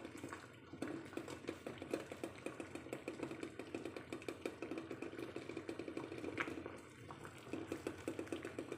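Pot of eggs at a hard boil: water bubbling with a rapid, steady rattle and clatter.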